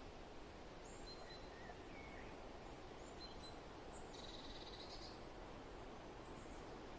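Soft, steady wind noise with faint, scattered bird chirps and a short buzzy call a little after four seconds in.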